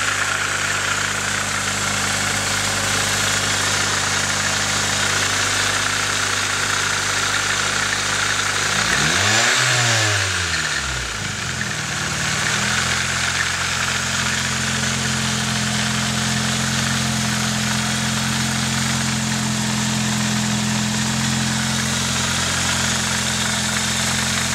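Nissan 240SX's KA24DE 2.4-litre four-cylinder engine idling steadily, blipped once about nine seconds in, the pitch rising and falling quickly before it settles back to idle. The owner wonders whether a noise in it is the timing chain.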